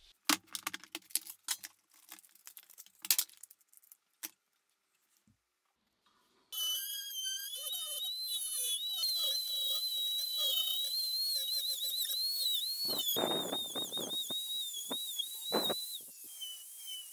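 A few sharp clicks and knocks, then after a short pause a handheld rotary tool starts and runs with a high whine that wavers in pitch as it grinds the rusty hand-forged iron spear points. Near the end come a few louder bursts of grinding.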